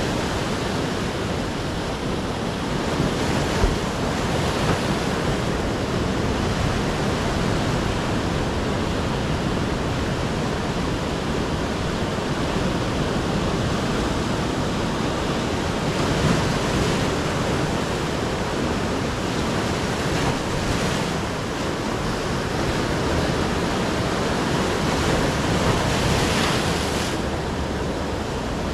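Ocean surf: a steady wash of breaking waves that swells louder every few seconds as each wave comes in.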